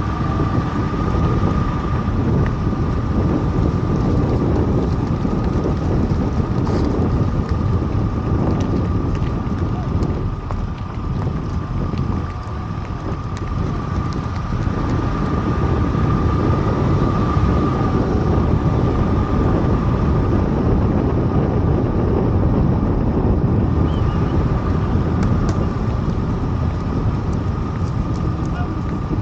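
Steady low rumble of a vehicle on the move, with wind buffeting the microphone and a thin, steady high whine on top.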